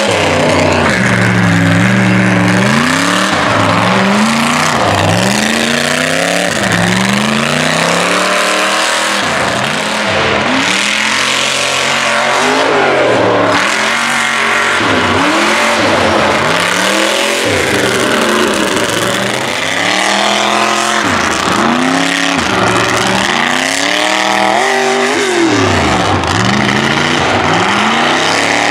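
Lifted mud truck's engine revved hard over and over, its pitch climbing and dropping every second or two as the driver works the throttle.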